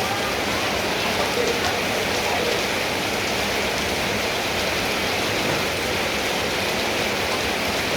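Heavy rain falling steadily, drops pattering on surfaces close by.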